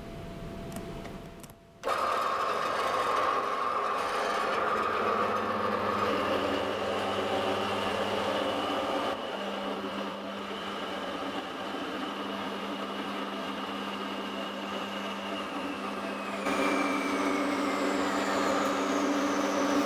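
Rothenburg 4x6 horizontal metal-cutting bandsaw running on its stock blade and sawing through a 12 mm steel rod: a steady motor-and-blade whine that starts about two seconds in, its pitch falling away near the end.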